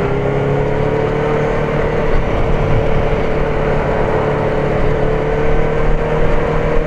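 Benelli TNT600 inline-four motorcycle engine pulling under throttle in gear, its pitch climbing slowly as the bike gathers speed, over a steady rush of wind.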